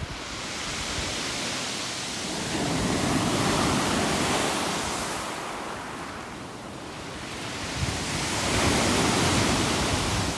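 Stormy sea surf: waves breaking and washing ashore in a wide rushing noise that swells and fades twice, about five seconds apart.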